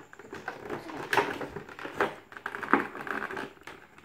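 Clear plastic blister packaging of a trading card box being handled and pulled at: a few sharp plastic clicks and crackles, the loudest three about a second apart near the middle.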